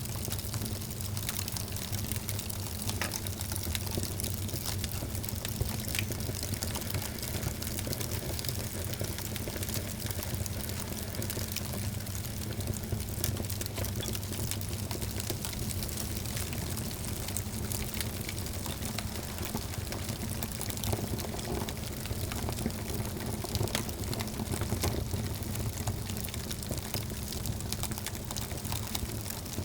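Wood fire burning in a fireplace, crackling with many small sharp pops over a steady low rumble.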